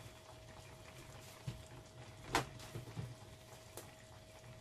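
Hands kneading and pressing a ball of bread dough on a floured mat: a few soft thumps and one sharper tap about midway, over a faint steady hum.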